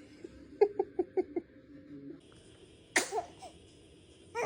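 A quick run of five short laughs, then about three seconds in a single sharp baby sneeze with a brief vocal tail.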